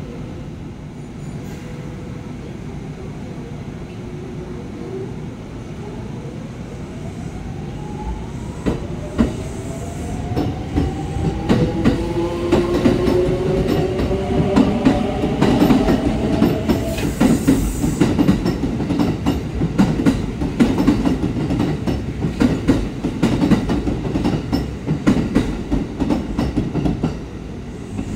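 Red-and-white Kintetsu electric commuter train pulling out of the platform. Its motors whine, rising in pitch as it gathers speed. From about a third of the way in, the wheels knock rhythmically over the rail joints as the cars pass close by.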